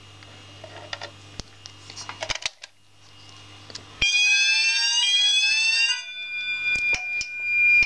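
Fire alarm sounder going off during a walk test of the alarm system: about four seconds in, a loud electronic tone rising in pitch for about two seconds. It is followed by a quieter steady high tone that grows louder. A few clicks come before it.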